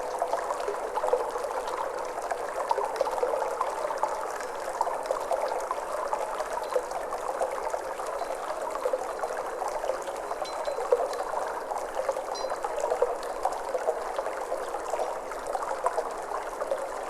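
Flowing water trickling and babbling steadily, a dense, even stream of small splashes.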